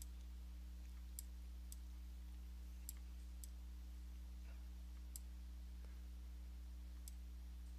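A computer mouse clicking now and then, six or seven sharp clicks at uneven intervals, while equalizer sliders are dragged, over a steady low electrical hum.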